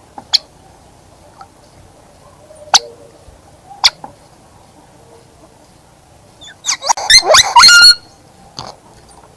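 Birds calling: a few single sharp calls in the first few seconds, then a loud burst of rapid, harsh chattering calls about seven seconds in, followed by one more call.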